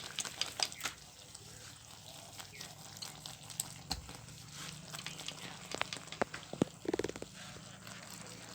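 Irregular light clicks and small knocks from a pot of ambul thiyal fish curry being shaken to mix it instead of stirring with a spoon, over a faint steady low hum.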